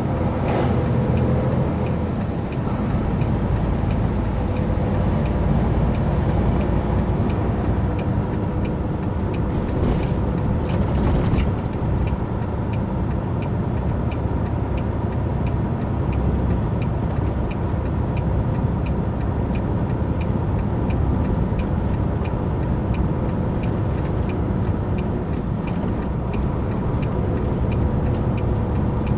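Semi-truck's diesel engine and road noise heard from inside the cab while driving, with a steady faint whine over it. A light ticking sounds about twice a second.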